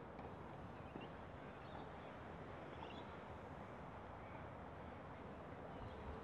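Quiet outdoor ambience: a steady low background hum with a few faint bird chirps.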